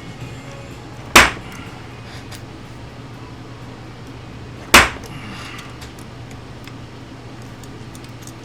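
Two sharp hammer strikes on a small metal part, about three and a half seconds apart, with a few faint ticks and a steady low hum between them.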